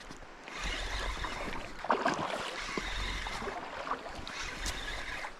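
Shallow river water splashing and sloshing, with wind rumbling on the microphone.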